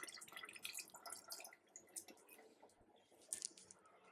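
Tamarind water poured by hand into a pot of sambar: a faint splashing trickle that dies away after about a second and a half, then a few soft drips.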